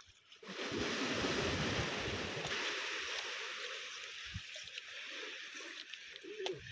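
Surf washing in: a broad rush of hiss that swells about half a second in and slowly fades away.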